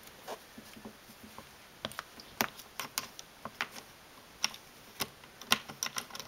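Irregular sharp clicks and ticks of metal hobby-knife blades against an iPod Classic's case as they are worked into the seam between the front and the metal back. The clicks grow more frequent from about two seconds in.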